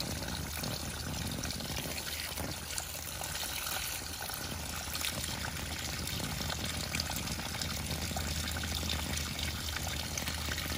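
Water running steadily, with a few faint clicks over it.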